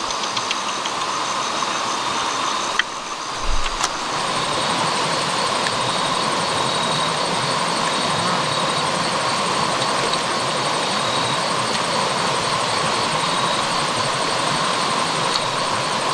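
Steady rush of water running over the stones of a shallow stream, with insects trilling high and fast through it. A few clicks and a low thump come about three and a half seconds in.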